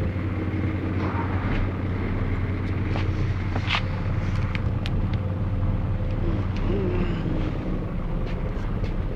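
Piaggio Bravo 50 cc two-stroke moped engine running steadily at idle through a Proma City Power aftermarket exhaust, with no revving. A few light clicks sound over it.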